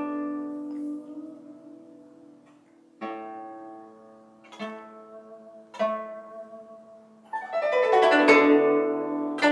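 Solo guzheng being played: a plucked note rings and dies away, then single plucked notes follow about every one and a half seconds. Near the end a fast downward sweep across the strings lands on a loud, ringing low chord.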